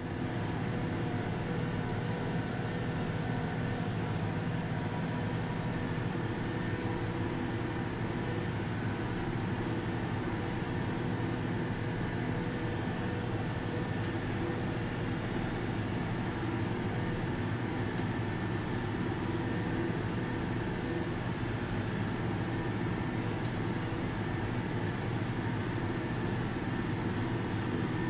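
Case IH tractor's engine running steadily under load, pulling a Kinze Mach Till 261 disc through wheat stubble, heard from inside the cab as an even, unchanging hum.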